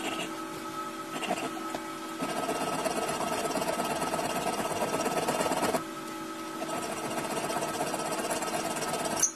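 Hand file rasping back and forth along the edge of a steel knife blank forged from a car differential gear and clamped in a bench vise. The strokes are loudest and densest through the middle, and the sound cuts off suddenly at the very end.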